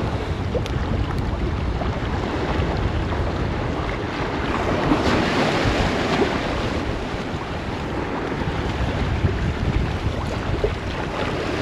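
Wind buffeting the microphone: a steady rushing rumble, with the sea's wash underneath.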